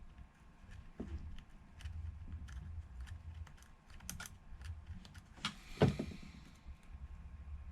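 Small scattered clicks and taps of metal hand tools working on a phone, with one louder knock near the end.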